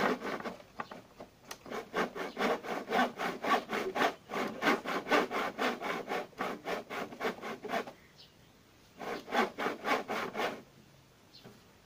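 Hand saw cutting through a bamboo pole in quick back-and-forth strokes, about three or four a second. It stops about eight seconds in, then resumes for a short burst of strokes.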